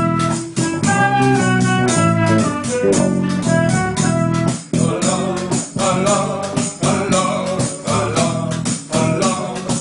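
Folk band playing a Moroccan song: a melody of short pitched notes over a steady beat, the sound growing fuller about halfway through.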